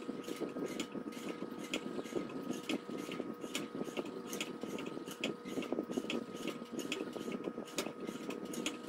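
Diamond sharpening film on the guided rod of a knife-sharpening jig stroked back and forth along a ceramic knife edge: a soft continuous scraping with light clicks about twice a second, over a faint steady hum.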